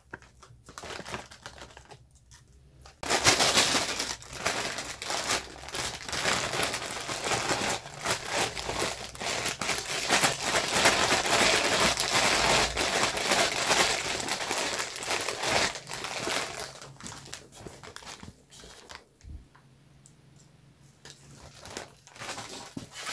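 Plastic snack-chip bags crinkling as they are handled, starting about three seconds in and dying down a few seconds before the end.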